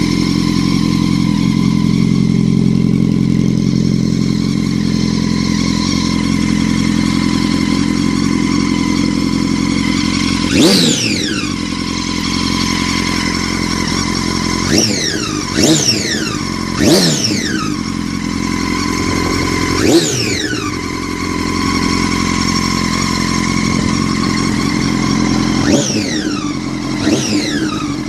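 2006 Honda CBR1000RR's inline-four engine idling, then revved in about eight quick throttle blips starting about ten seconds in. Under it runs a whining noise that gets louder as the bike is revved, a fault the owner cannot explain, which came with the bike feeling held back and dragging in gear even with the clutch pulled in.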